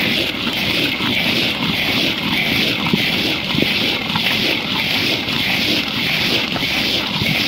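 Hot salt and chickpeas swishing and rattling in a large iron pan as a clay pot is swept round and round through them, a regular scraping hiss: chickpeas being parched in hot salt.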